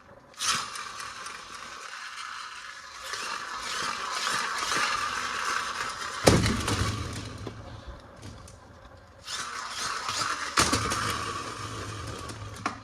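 Plastic toy packaging handled and rustled, a crackling, crinkly noise in two stretches, with a sharp knock about six seconds in and another near eleven seconds.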